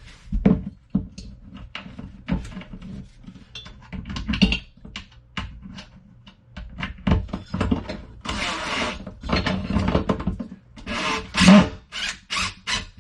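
Handling of tools and shelf hardware against a wall: irregular knocks and clicks, with a few scraping, rustling bursts of about a second each in the second half.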